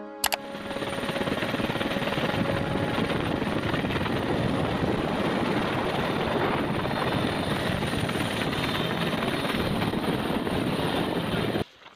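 Helicopter running, a loud steady noise that starts just after a short click and cuts off abruptly near the end.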